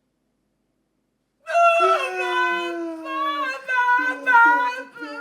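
Silence for about the first second and a half, then a voice holding two long notes that slowly fall in pitch, with a short break between them.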